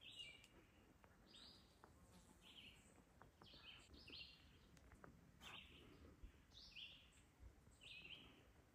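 Faint bird calls in quiet woodland: short, high chirping notes repeated about once a second, some in pairs, with a few light ticks underneath.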